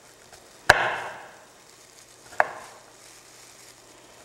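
Kitchen knife chopping fresh garlic on a cutting board: two sharp chops, about a second in and again a little past the middle, each trailing off briefly.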